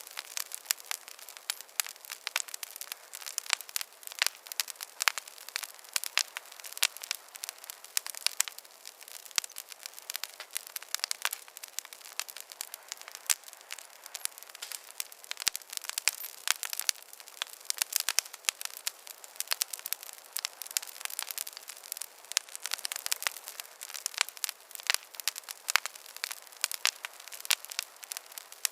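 Campfire crackling: many sharp, irregular pops and snaps, several a second, over a light hiss.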